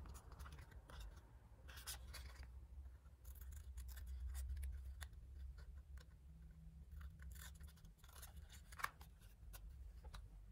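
Small craft scissors snipping folded paper, a scattered series of faint, irregular snips, over a low steady hum.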